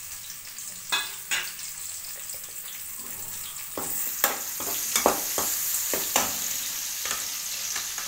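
Cut onions sizzling as they fry in hot oil in a metal kadai. A perforated metal skimmer ladle scrapes and clinks against the pan. The sizzle grows louder from about four seconds in.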